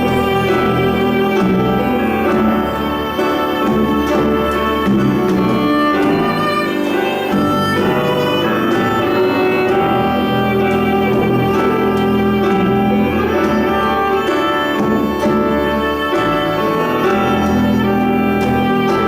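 Music played by bowed strings, violin foremost with cello underneath, in sustained, steady phrases.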